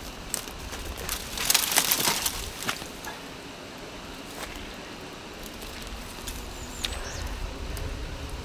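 Dry twigs and brush crackling and rustling as a person pushes through the undergrowth on foot, loudest in a burst about a second and a half in, then a few scattered snaps. A short high bird chirp sounds near the end.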